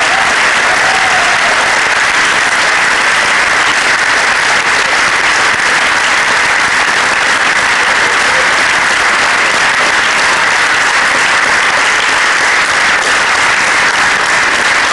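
Audience applauding steadily without a break.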